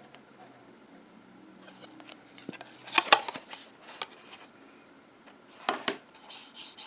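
Handling noises from small hard objects being picked up and moved: a few sharp clicks about three seconds in and again near the end, with light rubbing between them.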